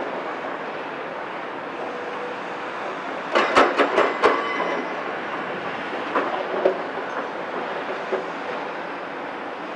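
CAT 374F excavator with its C15 ACERT diesel running under load as it swings and lowers its boom, with a quick series of sharp metallic clanks about a third of the way in and a few lighter knocks later.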